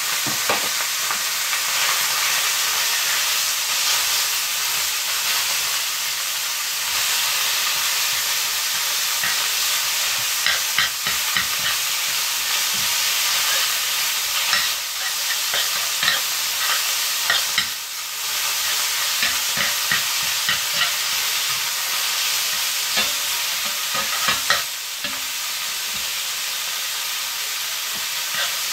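Minced meat sizzling steadily in hot olive oil in a frying pan, while a spatula stirs it and breaks it up with repeated short scrapes against the pan, busiest through the middle of the stretch.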